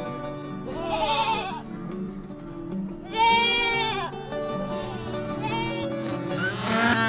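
Livestock bleating three times over steady background music, the loudest call about three seconds in and another starting near the end.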